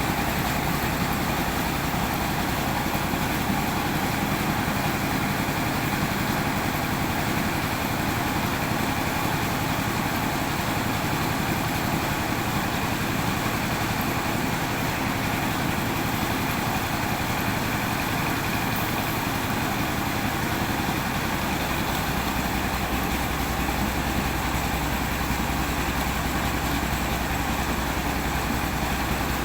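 An old car's engine running at a steady speed to power a rice milling machine. The drone is steady and unchanging.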